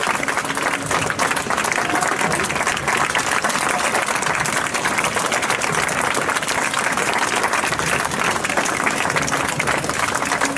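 Stadium crowd clapping steadily, a dense continuous patter of many hands with no break.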